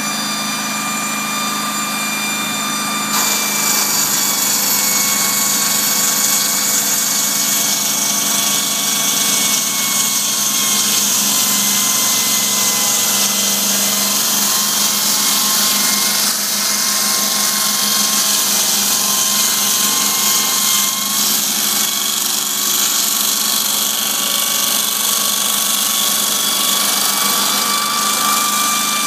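Large block-cutting circular saw slicing through a 290 mm thick stone block: a steady high whine from the spinning blade over a harsh grinding hiss. The grinding grows louder and brighter about three seconds in and then holds.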